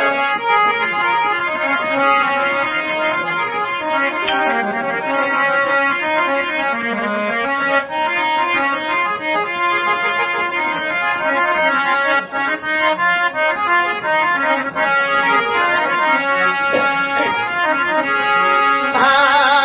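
Instrumental break in a Rajasthani folk song: a reed keyboard instrument of the harmonium kind plays a melody of held, changing notes.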